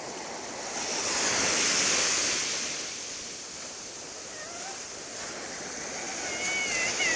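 Ocean surf: a wave breaks and washes up the shore, swelling to its loudest about one to two seconds in and fading, then the next wave builds near the end.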